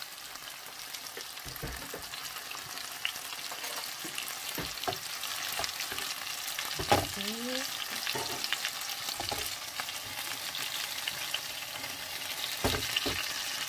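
Sausages frying in freshly added cooking oil in a pan, a steady sizzle and crackle that grows slowly louder. A spatula knocks and scrapes against the pan a few times as the sausages are moved.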